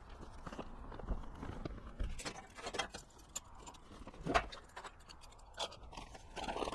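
Irregular light knocks, clicks and scrapes from sawdust being cleaned up in a workshop, with a few sharper knocks about one, two and four and a half seconds in.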